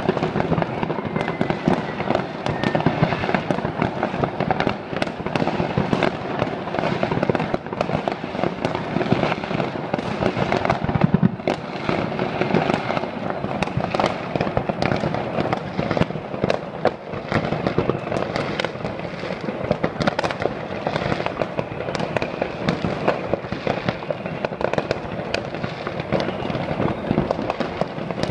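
Dense, continuous barrage of New Year's Eve consumer fireworks going off all over a city at once: overlapping bangs and crackles with no pause, with a louder bang about eleven seconds in.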